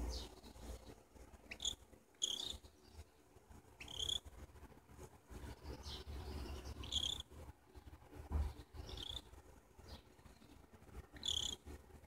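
Cockatiel giving quiet, short high chirps every second or two while its head is scratched, with dull low rumbles of handling noise in between.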